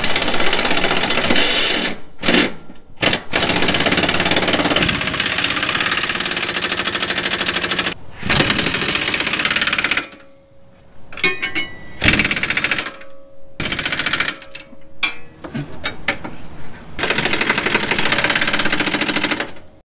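Pneumatic impact wrench hammering in repeated bursts with short pauses, running down and tightening the rear control arm bolts with the axle set at ride height. Long runs come first and near the end, with shorter bursts in between.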